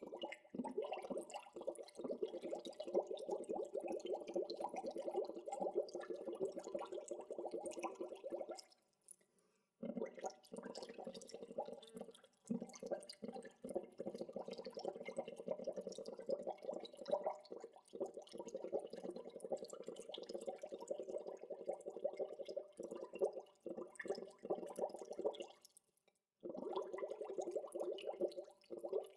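Natural bubble sounds: a dense, steady stream of water bubbles gurgling and popping. It breaks off for about a second around nine seconds in and again briefly near the end.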